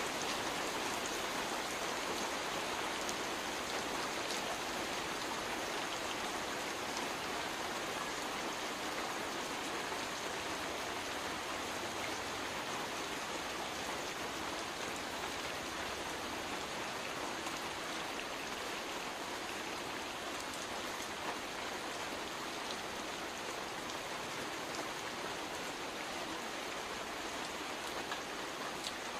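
Heavy rain falling steadily on a river and the moored boats on it, a dense even hiss with a few sharper drop ticks.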